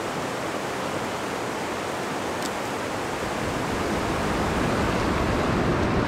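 Fast mountain river rapids rushing steadily, a continuous water noise that grows louder and deeper about halfway through.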